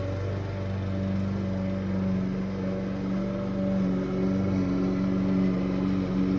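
Small gasoline engine running steadily, with small shifts in pitch.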